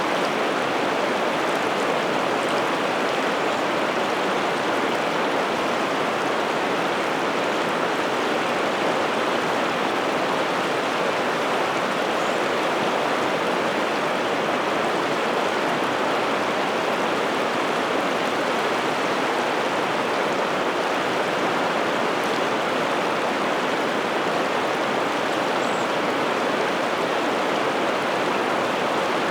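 Piteälven river water flowing with a steady, even rush that does not change.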